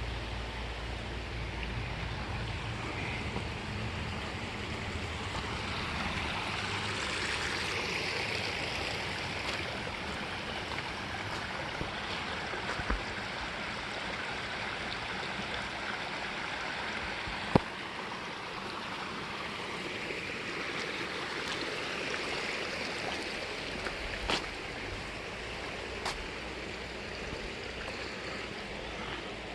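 Flood-swollen river rushing steadily, with a few short clicks or knocks partway through.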